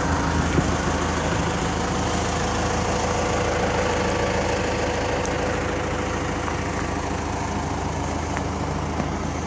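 John Deere 160LC excavator's 4045H 4.5-litre four-cylinder diesel engine idling steadily.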